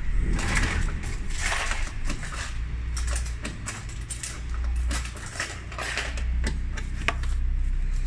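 Plastic cowl trim under a car windscreen being handled and worked loose by hand: rustling and scraping, then a run of small sharp clicks and taps, over a low rumble of clothing brushing the microphone.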